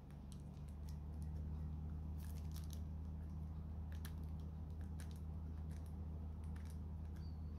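Fingernails picking at the thin plastic shrink wrap on a sealed trading-card deck box, giving scattered faint crinkles and scratches over a steady low hum.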